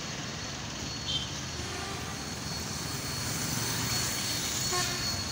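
Steady road traffic noise: a continuous wash of motor vehicles running past, with a brief faint high tone about a second in.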